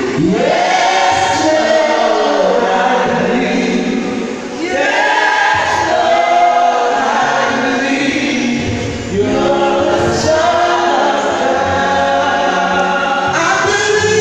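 Gospel worship team singing live into microphones: several voices in harmony holding long sung phrases, with a new phrase coming in about every four to five seconds.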